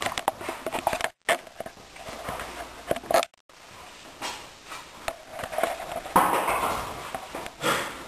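Irregular scuffs, knocks and rustles, as people clamber and handle gear in a rocky cave passage. The sound cuts out to silence twice, briefly, in the first half.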